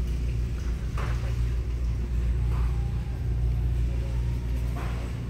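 Steady low rumble of supermarket background noise, with faint distant voices now and then.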